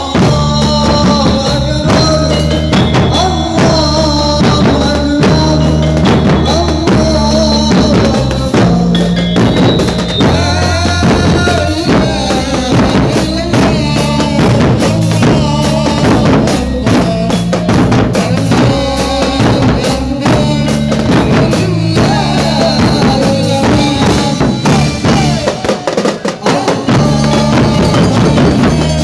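Loud music with a steady drum beat, a repeating bass line and a melody over it.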